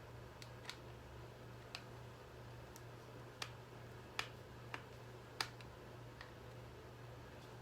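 Scattered light clicks and taps of hard plastic parts being handled while a hairdryer is taken apart, about nine at irregular intervals, the sharpest about four and five and a half seconds in.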